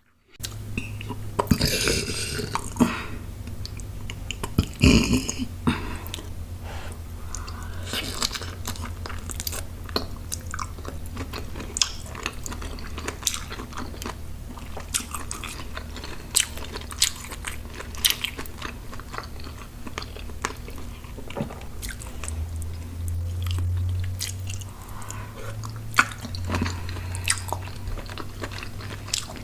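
Close-miked chewing and biting of crunchy food: a dense run of small crunches and mouth clicks, busiest in the first few seconds.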